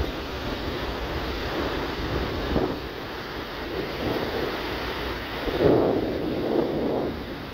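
Wind buffeting the microphone over the steady wash of surf, with a louder surge about three-quarters of the way through.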